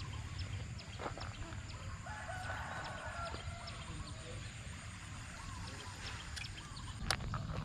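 A rooster crowing once, about two seconds in, with a few shorter chicken calls later, over a steady low rumble.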